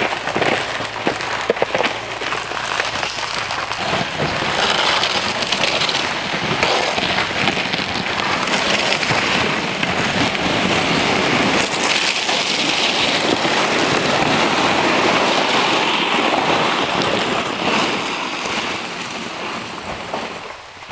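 A sled loaded with gear dragged over snow, its bottom scraping along with boots crunching in the snow. The noise fades away near the end.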